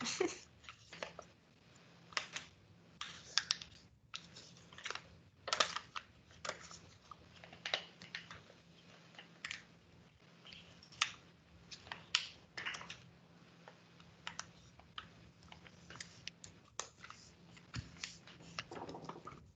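A sheet of paper being folded and creased by hand: irregular crinkles and scrapes, several a second.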